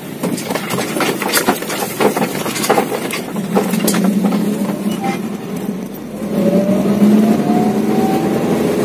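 Ambulance engine running, heard from inside the cab. For the first few seconds it comes with a string of clatters and knocks, then its pitch rises steadily as the vehicle picks up speed.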